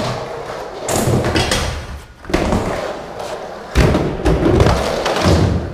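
Skateboard rolling over rough concrete and a wooden ramp, its wheels giving a loud gritty rumble, with several heavy thuds of the board hitting the ramp and floor about a second or so apart.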